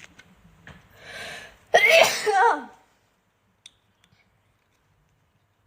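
A young woman sneezing once: a short in-breath about a second in, then one loud sneeze.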